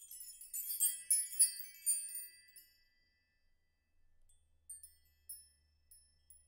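End-card music of high, bell-like chiming notes: a quick tinkling flurry that dies away after about two and a half seconds, then a few sparse single chimes near the end.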